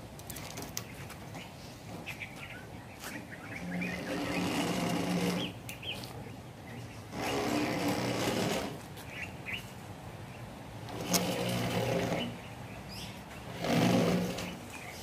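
A steel rebar cage, two bars tied with stirrups, scraping along the inside of a PVC pipe as it is shoved in. There are four rasping pushes of one to two seconds each, with a low tone in the scrape.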